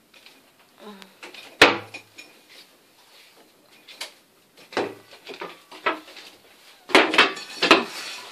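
Metal clanks and knocks, on and off, from tools and exhaust fittings being handled during boat exhaust repair work. The loudest strike comes about one and a half seconds in, with a quick run of clatter near the end.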